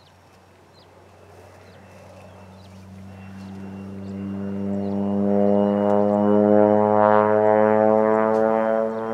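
Air Tractor 402B crop duster's Pratt & Whitney PT6A turboprop passing low: a deep, even propeller drone that grows steadily louder over about five seconds as the plane approaches, then holds loud, with a faint high turbine whine above it.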